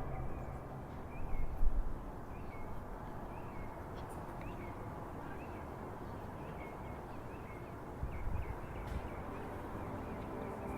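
Small birds chirping again and again over a steady low outdoor rumble, with a couple of brief louder bumps.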